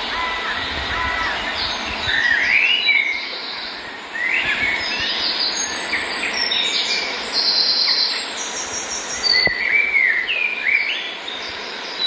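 Forest songbirds chirping and singing, many short notes and quick rising whistles coming one after another throughout, over a steady background hiss.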